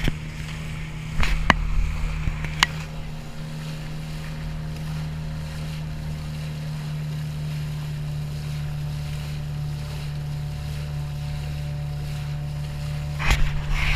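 A small boat motor running at a steady pitch as the outrigger kayak moves, with water splashing off the hull and outrigger float. A few sharp knocks in the first three seconds.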